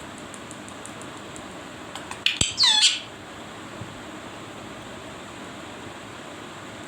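Pet parrot squawking: a brief loud burst of harsh calls with falling pitch, a little over two seconds in, after a faint run of rapid high chirps.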